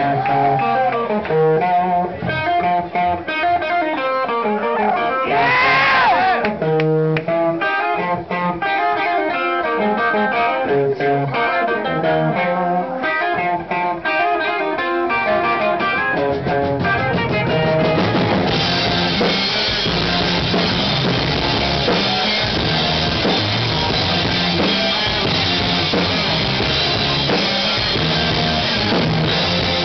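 Live rock band: electric guitars pick a sparse, rhythmic figure, with bass and drums. About 18 seconds in the full band with drum kit and cymbals comes in and the sound turns dense.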